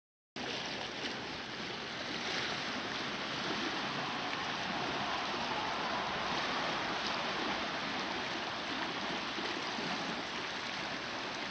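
Small lake waves washing and lapping on a rocky shore: a steady, even wash of water noise that starts just after a brief moment of silence.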